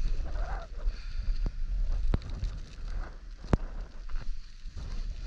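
Wind buffeting the microphone: a low rumble that rises and falls unevenly. Three sharp clicks cut through it, the loudest about three and a half seconds in.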